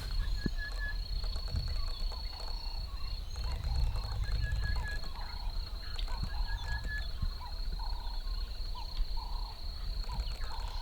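Bush ambience: a steady high-pitched insect drone, with short repeated bird chirps and calls over a low rumble of wind or an idling vehicle.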